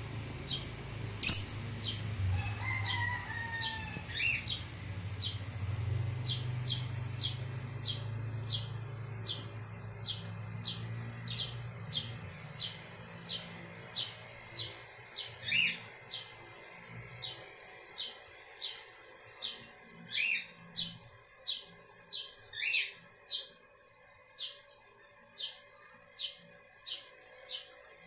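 Caged cockatiels and lovebirds chirping: a steady run of short high chirps, about two a second, with a few longer, lower calls, some falling in pitch. A low steady hum sits underneath and fades out about halfway through.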